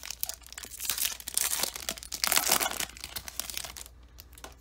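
Foil wrapper of a Pokémon trading-card booster pack being torn open and crinkled by hand: a dense crackling, loudest in the middle, that dies away about four seconds in.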